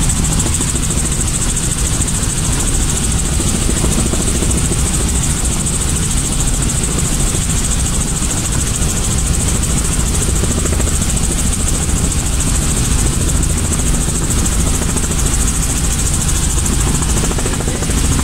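Helicopter running steadily: a loud, constant engine-and-rotor drone with a steady high hiss over it.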